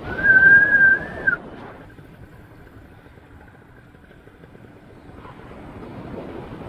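Wind rushing over the microphone in flight, with a high steady whistle-like tone about a second and a half long near the start that then carries on faintly for another second or so. The rush dips in the middle and swells again near the end.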